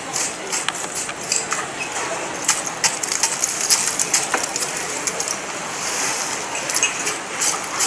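A hand carving tool scraping and chipping at a block of ice in quick, uneven strokes, a few each second.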